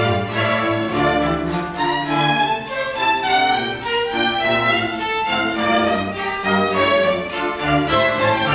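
A string orchestra of violins, violas, cellos and double bass playing classical music, with sustained bowed notes in several parts moving together.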